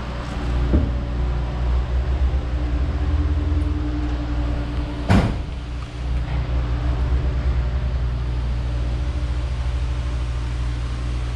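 A steady low engine-like hum with a few held tones runs throughout. A single sharp knock comes about five seconds in.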